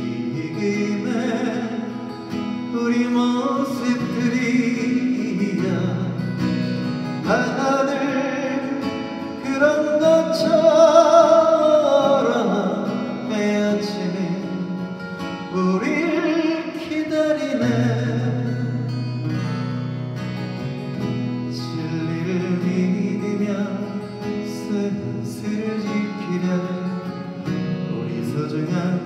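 A man singing a slow Korean folk ballad into a microphone while strumming an acoustic guitar. About ten seconds in he holds a long, loud note with a slight waver before the verse carries on.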